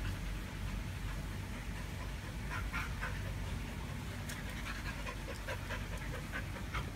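Dog panting, a quick, even run of short breaths that starts about two and a half seconds in.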